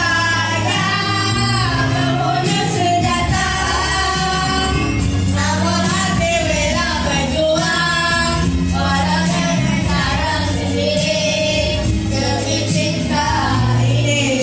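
A song: a sung melody over steady musical accompaniment.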